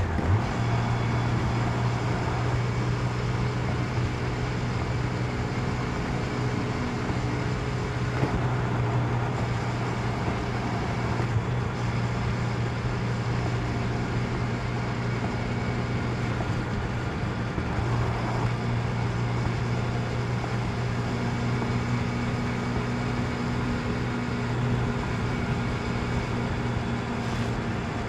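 1992 Honda CB750 Nighthawk's air-cooled inline-four engine running steadily while being ridden, holding an even pitch, over a steady rush of wind and road noise.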